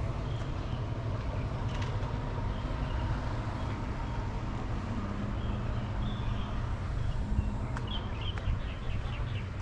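Outdoor ambience dominated by a steady low engine hum, with a few short high chirps, a cluster of them near the end.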